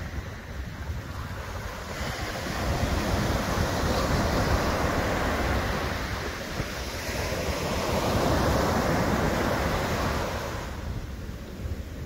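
Small surf breaking and washing up a sandy beach, rushing in twice, about two seconds in and again about seven seconds in. Wind rumbles on the microphone underneath.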